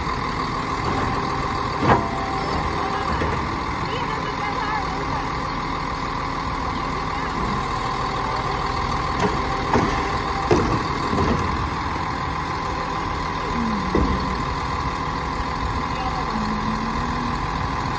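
Automated side-loader garbage truck running while its hydraulic arm grabs a garbage cart, lifts and dumps it into the hopper, and sets it back down, with a steady whine under the engine. A few clanks of the claw and cart, the loudest about two seconds in and a pair about ten seconds in.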